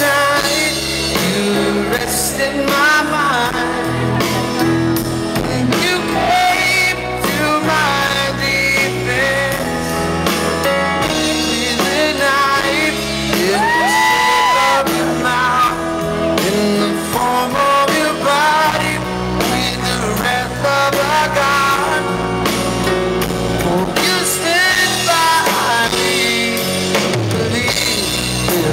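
Live pop-rock band performance of piano, drums and guitar, with a sliding lead melody line over it, heard from the audience in a concert hall.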